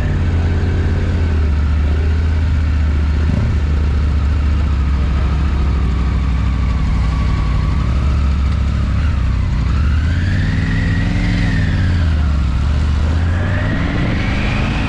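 Motorcycle engine running at low revs, then revving up and back down about ten seconds in and rising again near the end as the bike pulls away.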